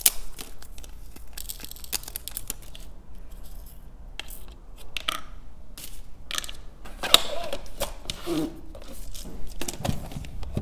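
Small crystal rhinestones tipped from a folded paper tray into the compartments of a clear plastic organizer: paper rustling with tiny stones clicking and rattling, and sharper plastic clicks now and then. The loudest click comes about seven seconds in.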